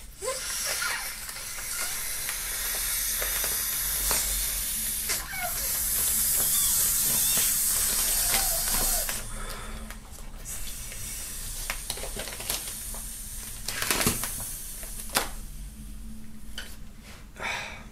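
Air being blown through the valve into an inflatable vinyl hand: a long rushing hiss, loudest a little past the middle, broken by a few short pauses, with light crackling of the plastic.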